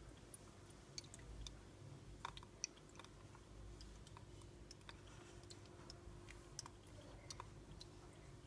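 Chameleon chewing its food: faint, irregular crunching clicks at very low level.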